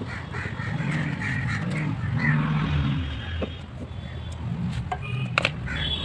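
Indistinct voices in the background, then a few sharp clicks about five seconds in.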